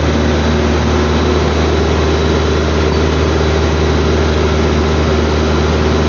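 Steady low droning hum like an engine or motor running, with no change in pitch or level throughout.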